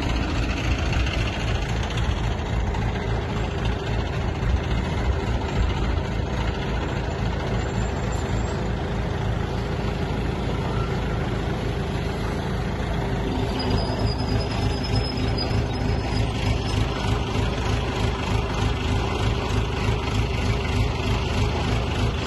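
Heavy diesel engine of a Hydra crane running steadily while it hauls a vehicle up out of a gorge on its cable, with a new steady note joining about 13 seconds in.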